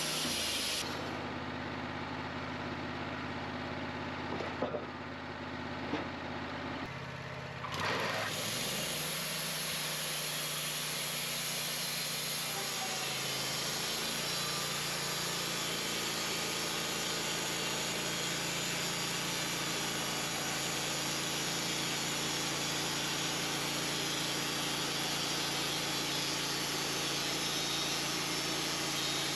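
Portable band sawmill running steadily under power. A few short knocks come in the first eight seconds, while the high hiss briefly drops away; after that the running noise is fuller and stays even.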